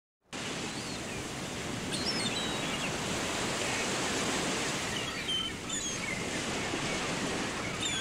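Beach ambience: a steady wash of ocean surf, with a few short, high bird calls scattered through it.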